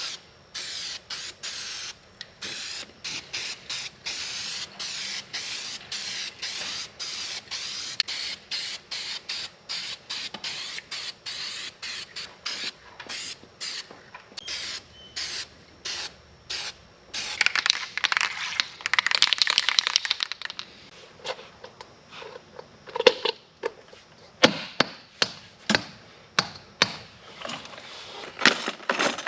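Compressed-air paint spray gun hissing in many short bursts, with sharp clicks and knocks between them near the end.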